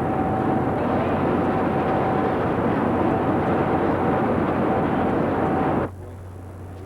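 Hoover Dam power plant's hydroelectric generator units running: a loud, steady noise with a thin steady tone above it. It cuts off suddenly about six seconds in, leaving quieter hall noise.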